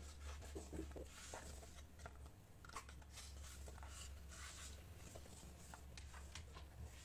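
Faint scraping and rustling of stiff cardboard being handled and pressed by hands, a scatter of soft scratches and ticks, over a low steady hum.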